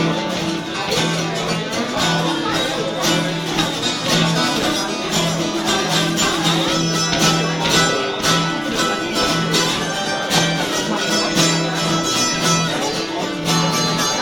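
Live band playing an instrumental stretch of a country/bluegrass-style song, with plucked strings over a repeated low bass note.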